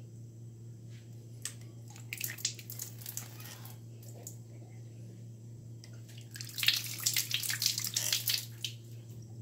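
Water splashing and dripping in two short spells, the second louder, as wild chili leaves are rinsed and handled.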